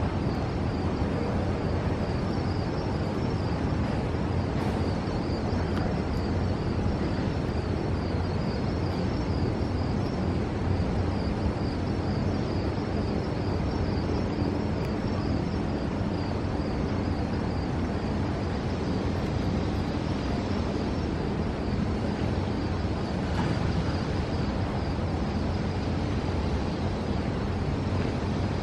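Steady outdoor background rumble and hiss with no distinct events, and a faint, high, wavering whine through the first two-thirds.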